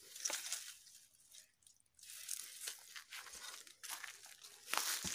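Irregular rustling and crunching of dry leaves and brittle undergrowth, heard in several short clusters with gaps between them.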